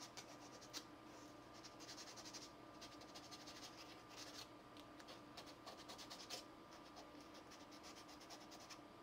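Faint, scratchy hand-sanding of a small cast-resin model part with sandpaper, cleaning off molding flash, in several short bursts of quick back-and-forth strokes.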